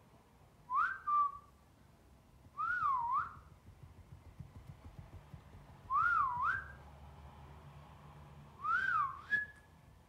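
Four short whistled phrases a few seconds apart, each sliding up and down in pitch; the last ends on a brief held higher note.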